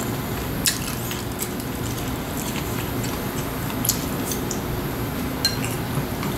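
Table sounds of eating: a few sharp clicks of metal chopsticks against ceramic bowls and the soft squish of steamed cabbage leaves being handled, over a steady low background hum.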